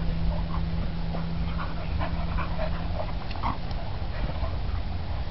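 Two dogs play-fighting, one a nine-month-old blue American Pit Bull Terrier, with a run of short high vocal sounds from the dogs about one to three and a half seconds in, over a constant low rumble.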